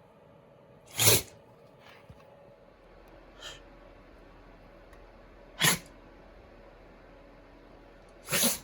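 Shiba Inu dog sneezing: three sharp, short sneezes a few seconds apart, with a fainter one between the first two, which the owner puts down to hay fever.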